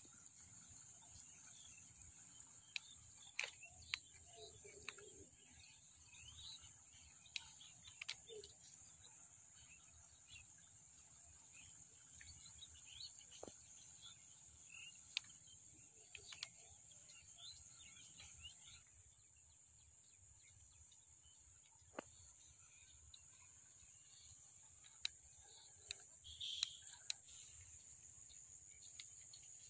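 Faint rural ambience: a steady high-pitched insect drone, with scattered short bird chirps and a few sharp clicks.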